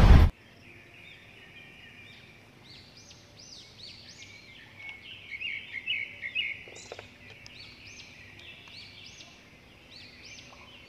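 Several small birds chirping, many short arched high notes repeating and overlapping throughout, over faint background noise. A loud noise cuts off suddenly at the very start.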